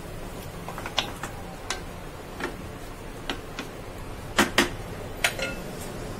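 Wooden spatula knocking and scraping against a nonstick pan while stirring chicken simmering in yogurt gravy: irregular clicks and taps, with two louder knocks close together about four and a half seconds in.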